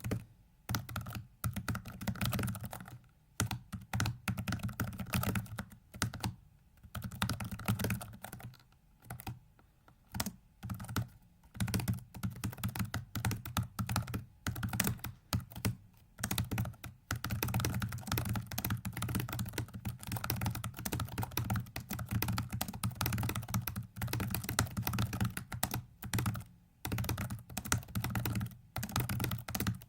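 Computer keyboard keys clicking in fast runs of keystrokes with short pauses between them, as the keyboard is used to twist a virtual 4x4x4x4 hypercube puzzle.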